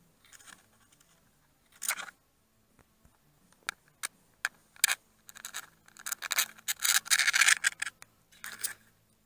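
Turn-signal wires and their crimp connectors being handled and pushed together: a few sharp clicks, then a louder stretch of scratching and rubbing about six seconds in.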